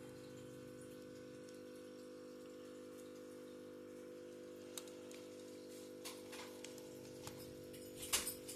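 Faint small clicks of a screw being placed and driven into the laptop's plastic bottom case, a few scattered ones and then a quicker run near the end, over a steady low hum.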